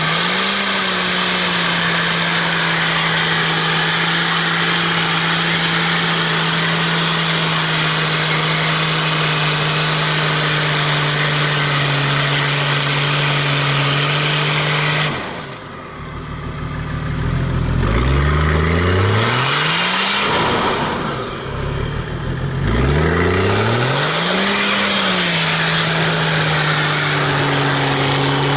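Off-road 4x4's engine working hard through a deep mud rut, held at a steady pitch, then twice dropping away and climbing back up in rising revs before it steadies again.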